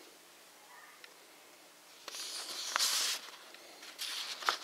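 Paper instruction booklet rustling as it is handled, in one rush of about a second starting about two seconds in, with a light click in it and a couple of faint ticks near the end. The rest is nearly quiet.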